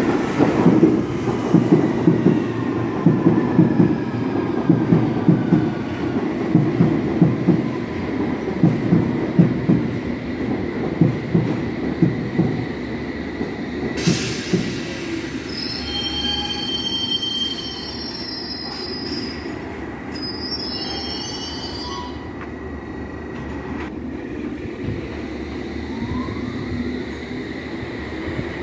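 London Underground S Stock train running into the platform, its wheels clattering over the rail joints in a quick run of knocks. About halfway through comes a brief hiss, then a few seconds of high-pitched wheel squeal as it slows. A faint rising whine comes near the end.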